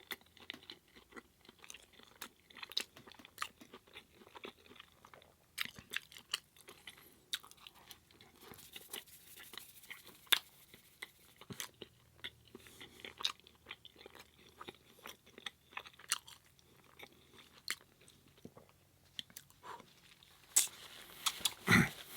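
Close-miked chewing of a Beyond Meat burger patty in spaghetti sauce with cheddar: irregular wet mouth clicks and smacks. A louder throat-clearing comes right at the end.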